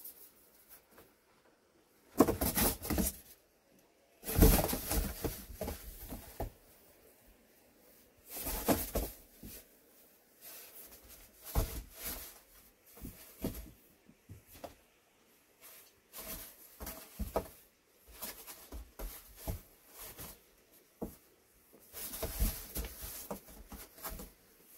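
Two kittens play-wrestling, their claws scratching and scuffling on a foam board in irregular bursts, the loudest a few seconds in.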